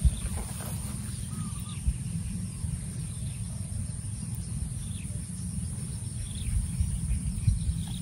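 Outdoor field ambience dominated by a low, uneven rumble of wind on the microphone, with a few faint short bird calls in the distance.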